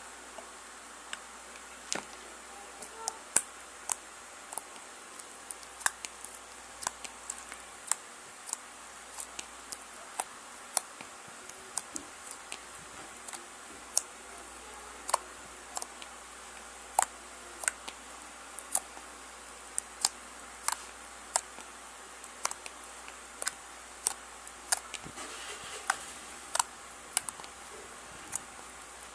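Thick blue glue-based slime being poked and pressed with fingers. It gives sharp, irregular clicks and pops, about one or two a second, as air pockets in the slime burst.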